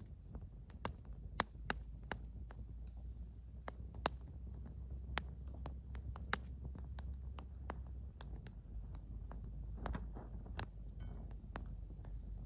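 Wood fire burning in a fire bowl: irregular sharp crackles and pops over a low, steady rumble of the flames.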